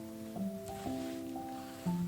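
Background music: soft, sustained instrumental chords that change to a new chord about every half second to a second.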